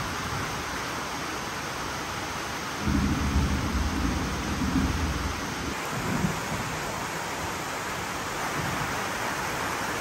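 Heavy downpour of rain hissing steadily, with a low rumble of thunder about three seconds in that lasts a few seconds, and a short lighter rumble just after.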